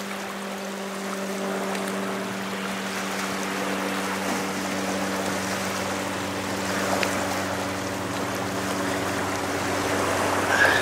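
Steady outdoor wash of wind and shoreline water with a constant low hum underneath, level throughout.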